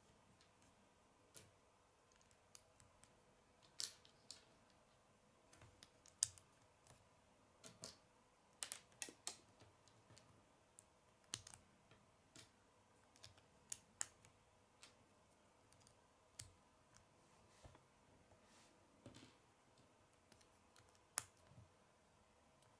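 Small plastic Lego pieces clicking as they are handled and pressed together: sparse, irregular sharp clicks, the sharpest about six seconds in and again near the end.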